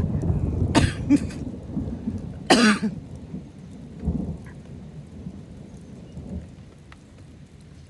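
A long roll of thunder rumbling, loudest at the start and slowly fading away over several seconds, with rain falling. A few short, sharp sounds break in during the first three seconds.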